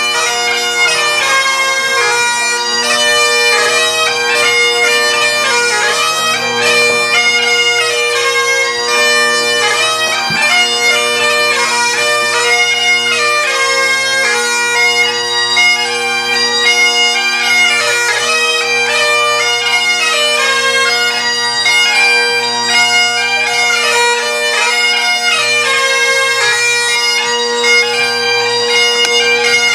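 Bagpipes playing a tune: a continuous melody over steady, unbroken drones.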